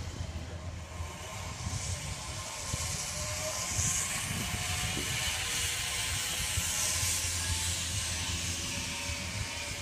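Zipline trolley running along a steel cable with a hissing whir that swells as riders pass overhead, twice louder near the middle, over low wind rumble on the microphone.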